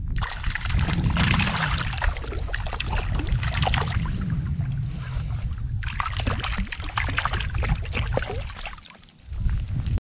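Water sloshing and splashing close beside a kayak, full of small sharp splash ticks, over a low rumble of wind buffeting the microphone.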